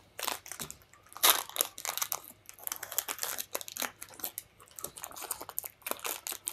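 A snack-bar wrapper crinkling and crackling as it is handled and opened: a rapid, irregular run of crackles, loudest about a second in.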